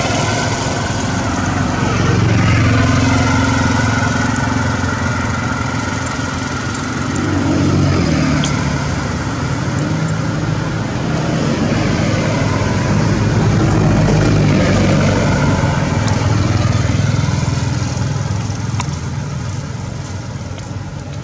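Steady motor-engine noise, like nearby road traffic, swelling and fading several times.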